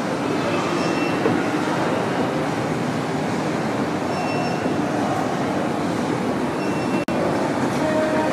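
Steady mechanical running noise of a shopping-mall escalator under the camera, over the general hum of a large indoor atrium. The sound drops out for an instant about seven seconds in.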